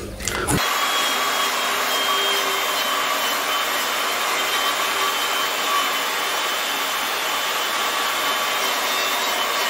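Angle grinder buffing the flat hub-mounting face of a cast-iron Ford D-series brake drum, cleaning it up as a smooth datum face for setting the drum up in the lathe. It starts about half a second in and runs at a steady pitch, a constant whine over hiss.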